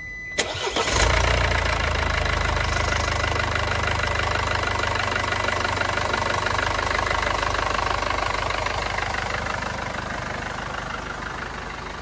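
Mercedes diesel engine cold-started: a brief crank, it catches about a second in and settles into a steady idle that quietens a little near the end. No rattle on the first cold start: the newly replaced timing chain is running quietly, with none of the chain-stretch noise.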